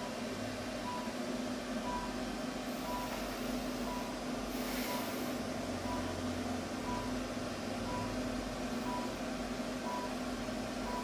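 A short, high electronic beep repeating about once a second over a steady low hum.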